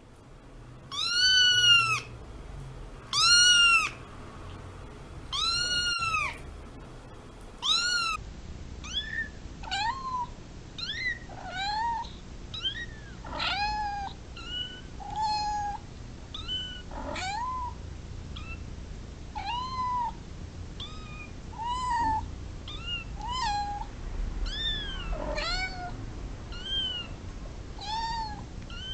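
Domestic cats meowing: three long, loud meows, then a run of many shorter, quicker meows, about one a second.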